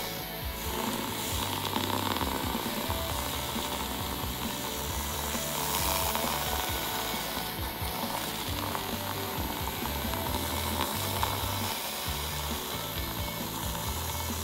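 Handheld battery milk frother running steadily, its spinning wire whisk churning a milky drink into foam in a ceramic mug, with background music underneath.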